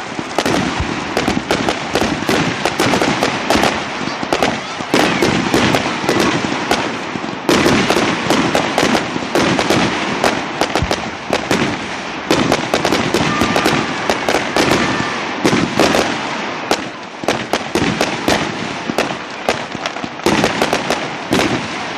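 Fireworks display: a dense, unbroken string of bangs and crackling reports, many to the second, with louder clusters of bursts every few seconds.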